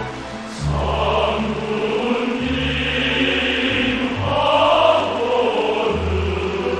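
A choir singing long held notes over orchestral accompaniment with a steady bass line.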